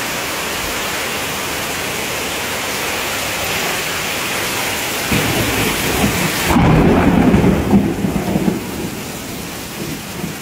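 Heavy rain pouring onto floodwater, a steady hiss. About five seconds in, a louder low rumble joins for two or three seconds, then the rain goes on more quietly.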